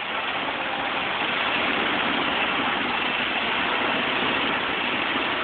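Mobile crane's engine running steadily while it holds a load on the hook.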